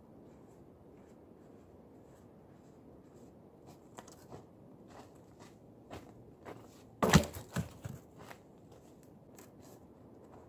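Footsteps crunching in snow, then about seven seconds in a heavy knock as a log is dropped, followed by a few smaller knocks as it settles.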